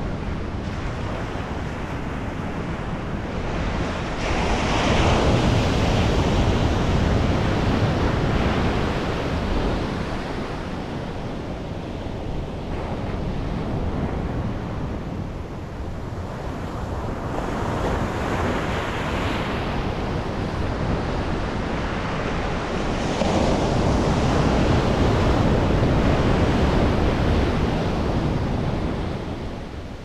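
Ocean surf breaking and washing up a sandy beach, swelling louder three times as waves come in, with wind rumbling on the microphone.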